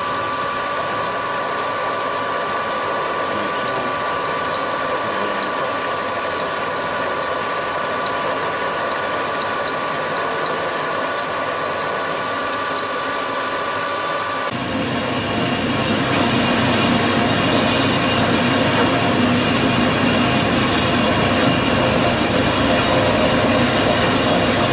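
A Hafco HM 54GV milling machine running, its end mill side-cutting an aluminium block, a steady sound with a high whine. About fourteen seconds in it switches abruptly to a metal-cutting bandsaw slicing through an aluminium block, louder and rougher.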